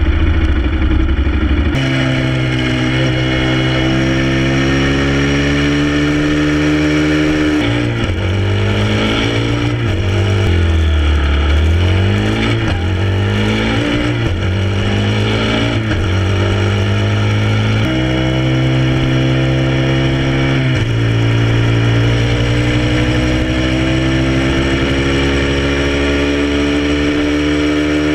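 Motorcycle engine idling, then pulling away about two seconds in and running up through the gears. Through the middle its revs swing up and down several times as it slows and accelerates again, and after a couple of gear changes it climbs slowly in the last several seconds.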